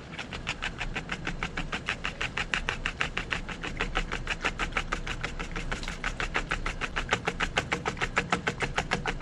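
Fork beating a raw egg in a bowl for an egg wash: a fast, even run of light clicks, about five or six strokes a second.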